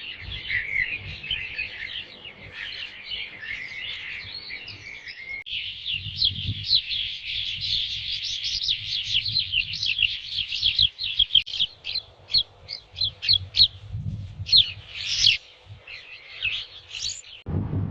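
Small birds chirping: a dense stream of quick, high chirps. The sound changes abruptly about five seconds in and cuts off just before the end.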